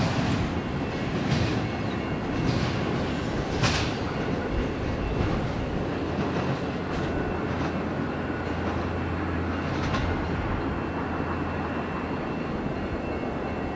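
Double-stack intermodal freight train of well cars rolling past at speed and moving away, a steady rumble and clatter of wheels on the rails that eases slightly toward the end. A few brief high-pitched sounds cut through in the first four seconds, the loudest about four seconds in.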